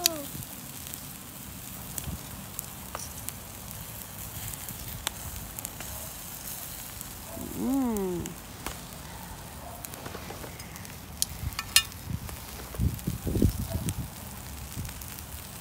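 Chicken drumsticks and corn sizzling and crackling on a barbecue grill, with scattered sharp clicks and pops.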